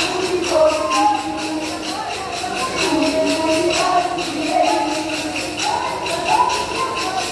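Kolkali performance: the dancers' short wooden sticks clack together in a quick, steady rhythm, with voices singing the kolkali song over them.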